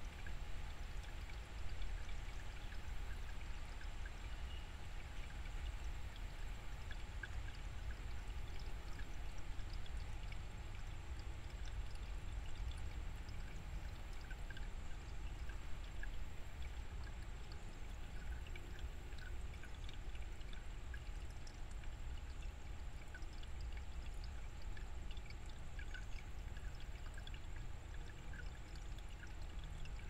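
Shallow stream running over rocks: a steady babble of flowing water, dotted with many small plinks and bubbles.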